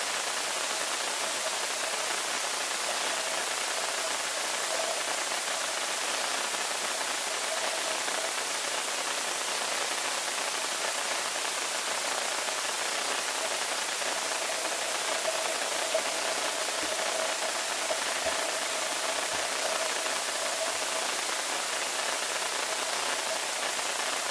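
Underwater swimming-pool ambience picked up by a submerged camera: a steady hiss with a faint hum in the middle that comes and goes, and a few soft low knocks about two-thirds of the way through.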